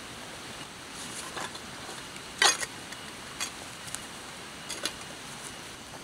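Backpack nylon and camping gear being handled: a string of short rustles and scrapes, the loudest about two and a half seconds in, over a steady rushing background noise.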